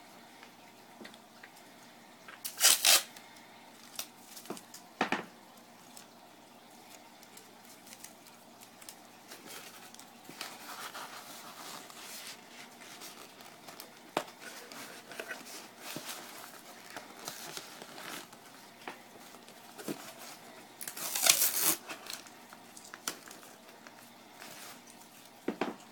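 Styrofoam panels rubbing and scraping as they are fitted into a cardboard shipping box, with scattered small clicks. Two short loud tearing bursts stand out, about 3 seconds in and about 21 seconds in, the later one masking tape being pulled off its roll.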